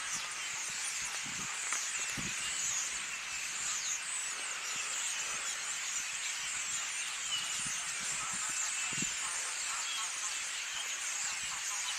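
A dense, steady chorus of many small high-pitched chirps and twitters, with a few soft low thumps.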